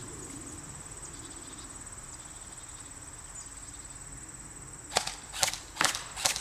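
Crickets chirping in a steady high buzz, then about five seconds in an airsoft M4-style rifle starts firing single semi-auto shots: four sharp cracks roughly half a second apart.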